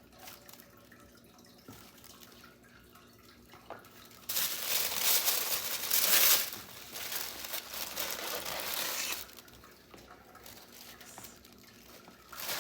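Packaging crinkling as it is handled and unwrapped, loud for about five seconds starting about four seconds in, with quieter handling noises before and after.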